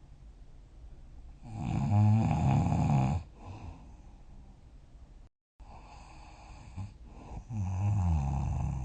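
A person snoring: a long, pitched snore about one and a half seconds in that lasts nearly two seconds, then a second snore building near the end. There is quieter breathing between them and a brief gap of dead silence midway.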